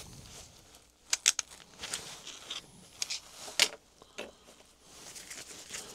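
A few sharp, separate clicks and taps of small plastic parts and tools being handled and set down on a wooden workbench.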